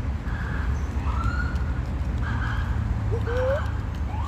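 An animal calling: short rising whistles alternating with short buzzy notes, about one each second, over a steady low rumble.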